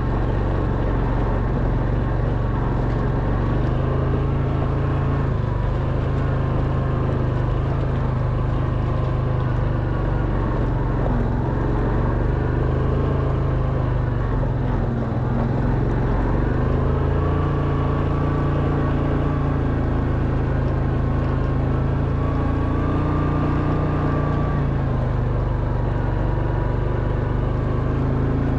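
Quad bike engine running steadily while climbing, its pitch rising and falling a little now and then.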